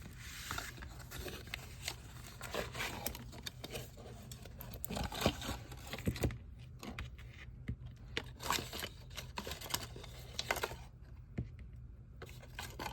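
Packaging handled by hand while being unwrapped: an uneven crinkling, tearing rustle broken by many small clicks and knocks.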